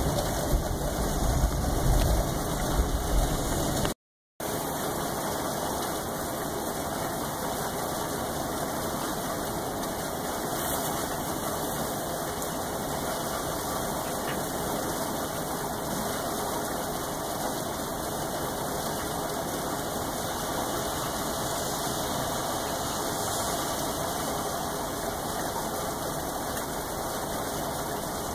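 Steady rain falling, an even hiss without pauses. A louder low rumble runs through the first four seconds and ends at a brief dropout to silence.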